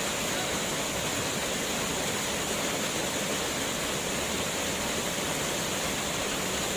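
Waterfall, its water falling in a steady, even rush.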